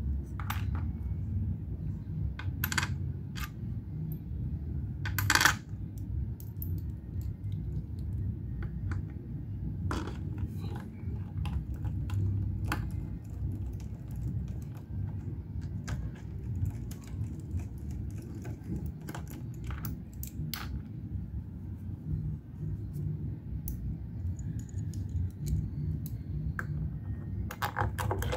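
Small metal engine parts clinking and clicking as they are handled and fitted, in scattered sharp clicks, the loudest about five seconds in and a quick cluster near the end, over a steady low hum.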